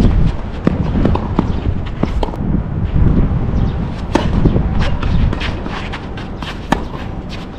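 Tennis play: sharp pops of a racket striking the ball and the ball bouncing, with a serve struck about four seconds in, and footsteps on the court, over a steady low rumble.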